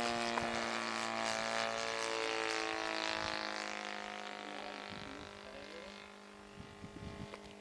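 Engine of a quarter-scale RC model Ryan SC-W droning in flight overhead, its pitch gradually falling and the sound fading as the plane flies away.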